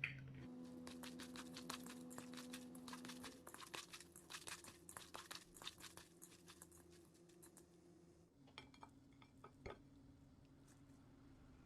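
Food being handled in a kitchen: a quick run of crisp crunching, crinkling clicks that thins out after about seven seconds to a few scattered ones, over a faint steady hum.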